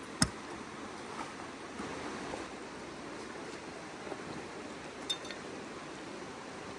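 Steady rush of a mountain river's flowing water, with one sharp knock about a quarter second in and a smaller click about five seconds in.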